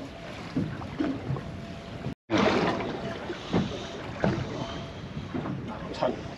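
Small waves slapping against the hull of a small fishing boat at sea, with wind on the microphone. The sound cuts out for a moment about two seconds in and comes back a little louder.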